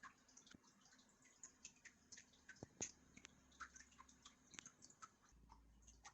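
Faint, irregular small clicks and taps, several a second, with a couple of sharper clicks near the middle: hands handling a carbon monoxide alarm and its packaging.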